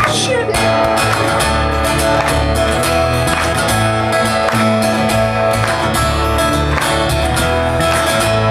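Live acoustic guitar strummed in a steady rhythm, with a bowed cello holding low sustained notes underneath: an instrumental passage with no vocals.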